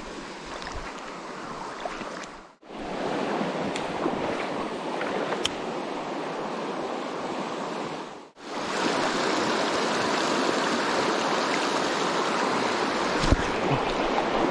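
Shallow rocky stream rushing over stones, a steady wash of water with a few sharp ticks. The sound cuts out twice for a moment and is louder after the second break.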